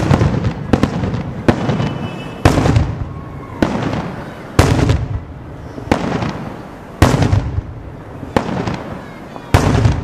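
Daytime aerial fireworks going off in a steady series, a sharp bang about every second with rumbling echo between them. Some reports are much louder than others.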